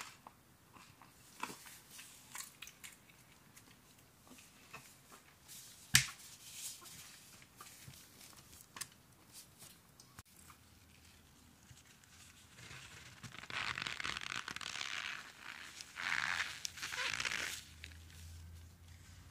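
Ice coated in cornstarch crunching and crackling: scattered small crackles and one sharp crack about six seconds in, then two longer stretches of crunching and crushing in the last third.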